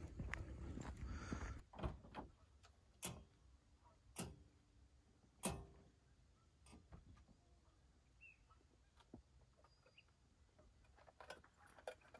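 Faint footsteps on gravel for the first couple of seconds, then a few sharp separate knocks and clicks of gear being handled at an SUV's open rear hatch, the loudest about five and a half seconds in.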